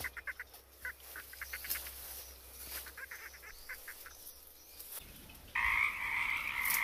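Frogs calling: short trains of rapid pulsed croaks at first, then about five seconds in a loud, continuous frog chorus starts up and holds steady.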